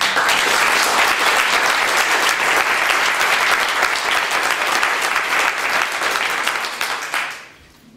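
Crowd applauding with many hands clapping. It starts suddenly and dies away near the end.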